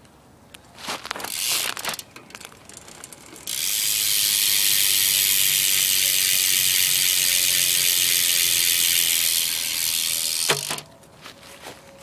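BMX rear hub on an Odyssey Hazard Lite V2 wheel, its freewheel ratchet buzzing as the wheel spins. A short burst comes about a second in, then a loud, steady buzz runs for about seven seconds and cuts off with a knock near the end.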